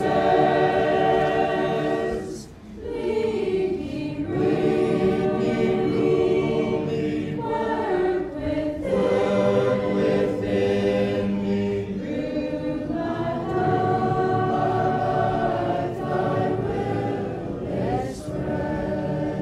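A congregation singing a hymn together, many voices holding long notes, with a brief breath break about two and a half seconds in.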